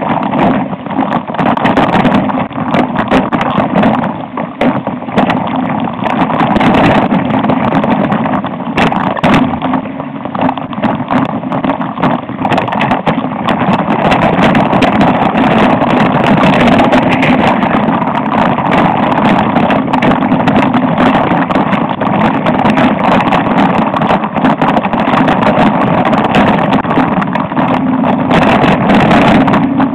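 Continuous loud rumble and rattle of riding down a rocky dirt trail, heard from a rider-mounted camera, with no let-up.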